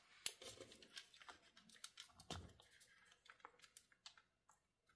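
Faint, scattered clicks and light scraping of fingers handling the battery and internal plastic parts of an opened laptop.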